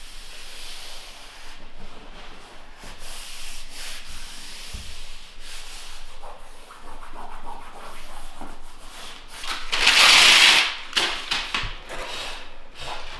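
Flooring planks being slid and rubbed into place on the floor, a continuous scraping with small knocks, and one louder, longer scrape about ten seconds in.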